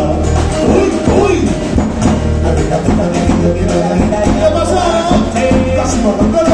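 A live Latin tropical band playing loud dance music: congas and timbales keep a driving beat over electric bass and keyboard, with a lead voice singing.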